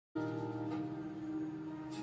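Live band playing the instrumental intro of a song in held, sustained chords, cutting in abruptly.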